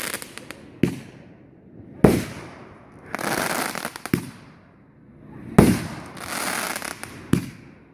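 Fireworks going off: about five sharp bangs, the loudest two about two and five and a half seconds in, each big one followed by about a second of crackling hiss.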